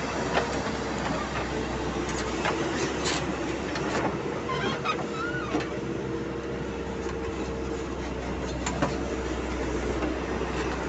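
Backhoe loader's diesel engine running steadily, with scattered clanks and knocks from the working machinery.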